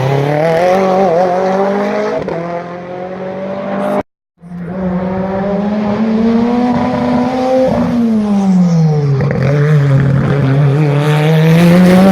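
Race car engine running hard at a hillclimb, its pitch climbing under full throttle. The sound cuts out for a moment about four seconds in, then another run follows: the engine climbs again, drops steeply around eight seconds in as the revs fall off, and climbs once more.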